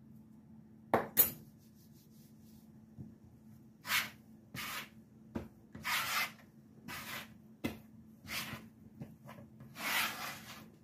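Hands kneading soft, sticky dough on a floured wooden cutting board: irregular rubbing, scraping strokes of the dough against the board, roughly one a second from about four seconds in. Two sharp knocks about a second in.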